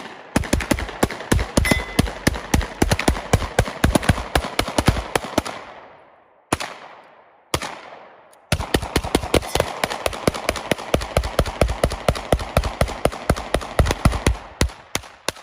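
Rapid gunfire from two shooters firing handguns at once, one of them a small Uzi, many shots a second with ringing echoes. A first long string fades out about five seconds in, two single shots follow, then a second long string of about six seconds, ending in a few scattered shots.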